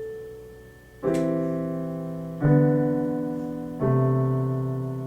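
Piano playing slow sustained chords: three struck about a second and a half apart, each left to ring and fade before the next.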